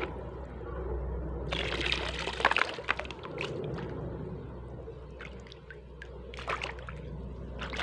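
Water splashing and pouring as a black plastic bucket is dipped and swirled in shallow muddy water, with a longer bout of splashing about two seconds in and sharper splashes near the end.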